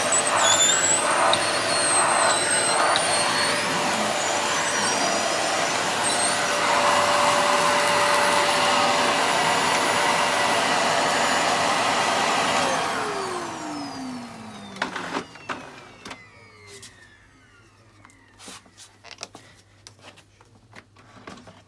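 Dyson vacuum cleaner running with a loud steady rush of air and motor whine, with faint shifting high whistles in the first few seconds. It is switched off about twelve seconds in, and the motor winds down in a falling whine over a couple of seconds. A few light clicks and knocks follow as it is handled.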